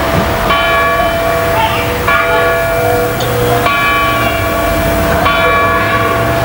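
Church bell tolling, four evenly spaced strokes about a second and a half apart, each ringing on and fading.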